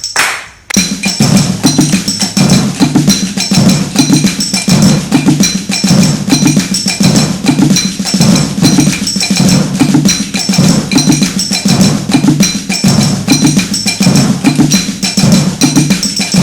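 Batucada-style group percussion played on household utensils instead of drums: a steady, repeating rhythm of low thudding hits with a bright metallic ringing hit over them. It starts about a second in, after a short break.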